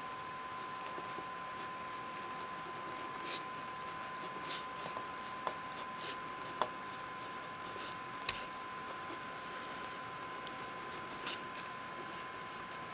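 Handwriting on lined spiral-notebook paper: faint, scattered scratchy strokes and soft taps of the writing tip on the page, with one sharp click about eight seconds in, over a steady hiss and a thin steady tone.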